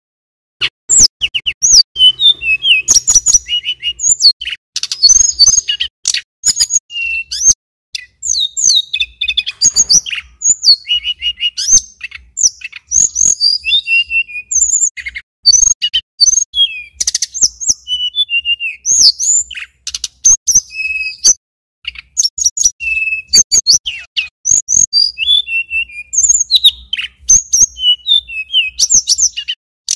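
Male tledekan gunung (sulingan gunung) singing a long, unbroken run of rapid, varied high whistled phrases mixed with sharp clicking notes, starting just under a second in.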